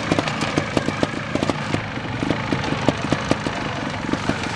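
Trials motorcycle engine idling steadily, with many short, sharp, irregular pops and clicks over the hum.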